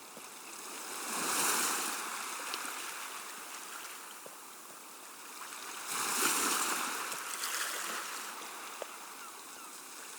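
Surf: waves rushing in and ebbing away, with two swells about five seconds apart.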